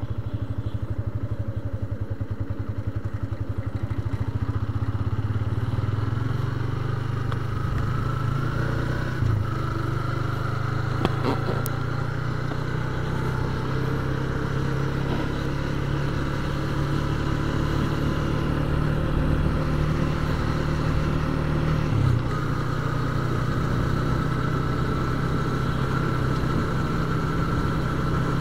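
Yamaha Vixion motorcycle's single-cylinder engine pulling away from low revs, its note rising in pitch over the first several seconds, then running steadily at cruising speed.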